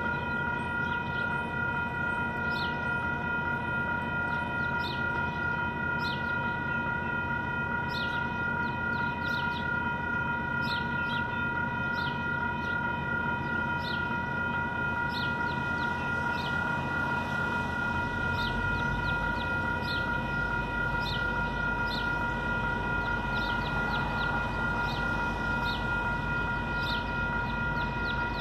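Railroad crossing warning bell ringing continuously, with the flashing crossing signals active. A low rumble builds from about two-thirds of the way in as a train approaches the crossing.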